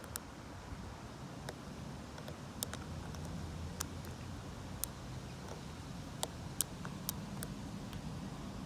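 Scattered small, sharp clicks from a short-hook lock pick and tension tool working the pins of a Lockwood 570 oval pin-tumbler cylinder, irregularly spaced, over a low muffled wind rumble.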